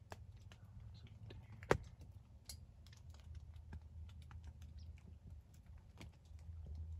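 Faint, scattered small clicks and taps, with one sharper, louder click a little under two seconds in, over a low steady rumble.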